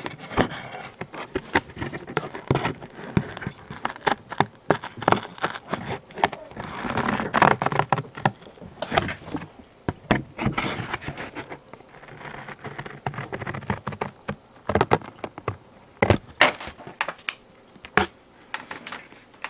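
Cardboard Funko Pop box panels being handled and pulled apart right at the microphone: a run of paperboard crackles, scrapes and sharp snaps, densest about seven seconds in.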